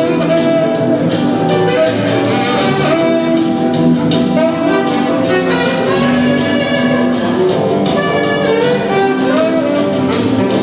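Live jazz-blues, a saxophone playing the lead line in held and bending notes over a steady bass accompaniment.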